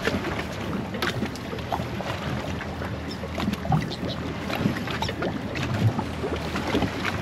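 Wind on the microphone and water around a boat at sea, over a low steady hum, with scattered small clicks and knocks.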